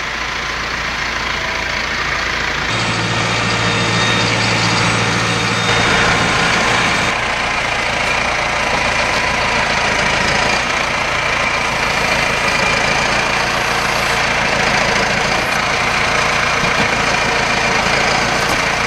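Massey Ferguson 5711 tractor's diesel engine running under load while working its front loader, growing louder over the first few seconds and then running steadily.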